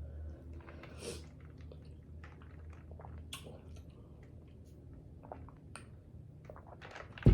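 A person chewing food with small wet mouth clicks and smacks, in a mukbang eating show. A single loud thump comes near the end.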